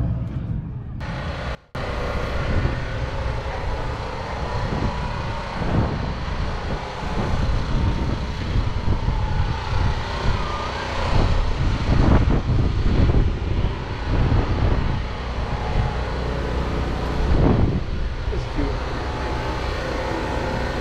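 Continuous motor-vehicle engine noise with faint voices underneath, swelling louder a few times.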